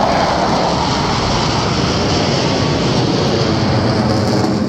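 Jet noise from Korea Aerospace T-50B jets, single-engine turbofan trainers, flying overhead in formation: a loud, steady rushing noise that holds without a break.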